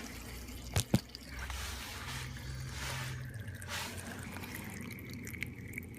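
Water trickling and dripping from a leaking one-inch water line and shut-off valve under a concrete slab, with two sharp clicks just under a second in.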